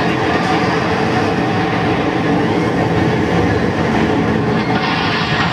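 Steady rumble of a B&M inverted roller coaster train running along its steel track, from a ride-through animation's soundtrack played over loudspeakers. Applause starts near the end as the train reaches the brake run.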